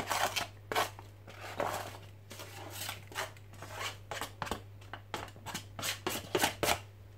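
A spatula scraping and tapping against a plate and a mixing bowl as flour and spices are scraped off the plate into the bowl: a run of short, irregular scrapes and knocks, over a steady low hum.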